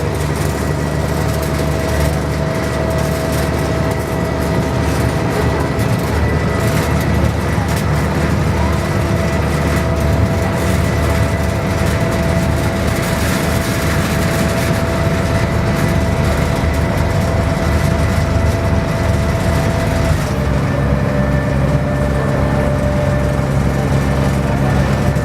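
Ferry's engine running steadily, a loud drone with a held whine above it; the engine note drops slightly about twenty seconds in.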